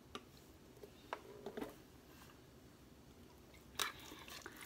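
Faint kitchen handling sounds during chicken marinating: a few soft clicks and taps, the sharpest near the end, over quiet room tone.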